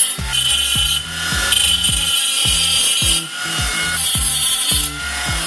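12-volt cordless angle grinder cutting through a steel bracket: a steady high whine with a grinding hiss, over background music with a steady beat of about two thumps a second.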